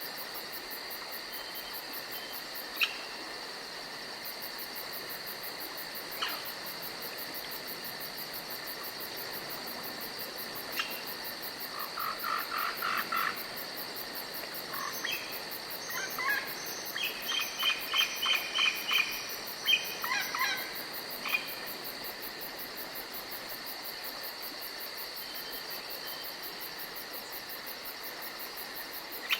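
Forest night ambience: insects chirring steadily with a fast, even, high-pitched pulsing throughout. Roughly midway a bird gives runs of quick repeated notes, and a few single sharp chirps come before and after.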